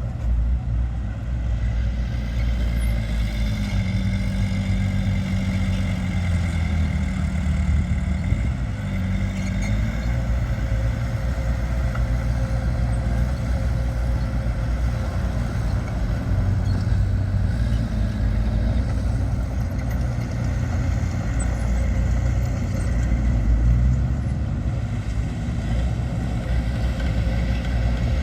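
Diesel engines of heavy earthmoving machinery running continuously, the engine note shifting a little as they work.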